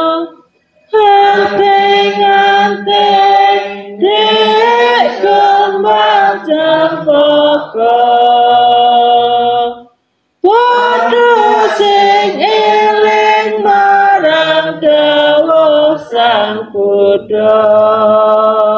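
A group of women singing a Javanese Buddhist devotional song in unison into a microphone, with sustained notes. The sound drops out completely twice: briefly just under a second in, and again for about half a second around ten seconds in.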